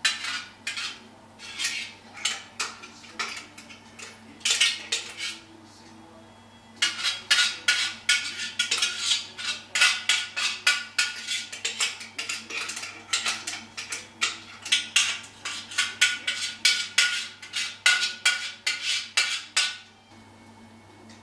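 A spoon scraping and clinking against the inside of a Thermomix's stainless-steel mixing bowl in quick repeated strokes as tomato sauce is scraped out of it. There is a short pause about six seconds in, and the scraping stops just before the end.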